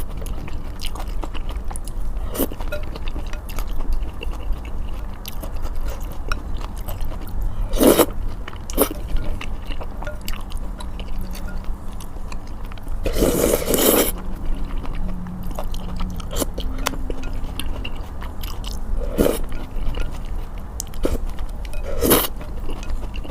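Close-miked eating of malatang: steady wet chewing, with a few louder slurps of noodles, the longest about halfway through, over a low steady hum.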